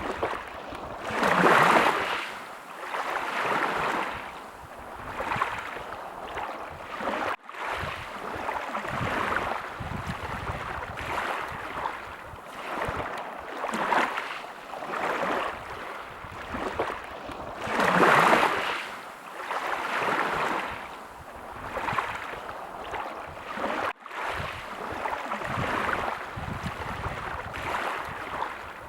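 Sea waves washing in over and over, each one a rush that swells and fades every few seconds, with two bigger surges. There are two brief, sudden dropouts in the sound.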